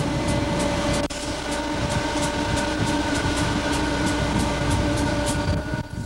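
EMD GF6C electric locomotive under way: a steady rumble of wheels and running gear with a whine of several steady pitches, and a faint regular ticking about four times a second.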